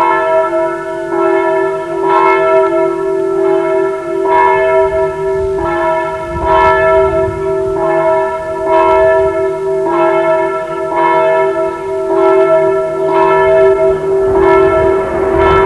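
A church bell tolling, struck about once a second, its ringing sustained between strokes.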